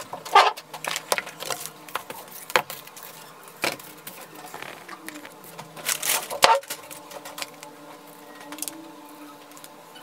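Handling sounds: scattered clicks, knocks and rustles of food packaging and a foil-covered tray being moved on a table. The loudest cluster comes about six seconds in.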